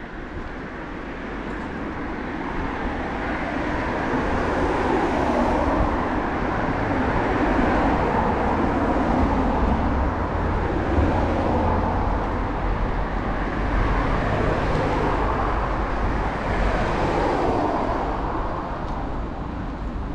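Road traffic: cars passing one after another on a town road, their tyre and engine noise swelling and fading several times over a steady low rumble.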